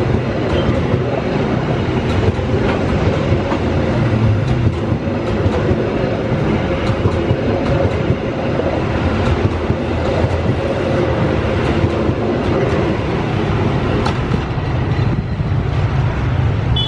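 Long-distance passenger train coaches passing close by at speed, their steel wheels running on the rails with a steady loud noise.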